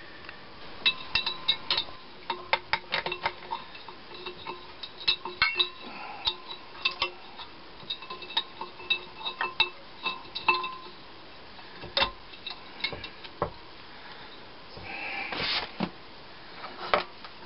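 Metal hand tools clinking and tapping irregularly against the cast metal of a Kohler K181 engine and its bench while its flywheel end is worked on, with a short scrape about fifteen seconds in.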